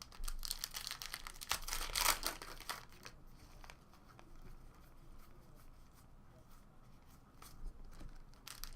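Trading card packaging crinkling and tearing in a run of quick rustling bursts, the loudest about two seconds in, then fainter handling until more crinkling near the end.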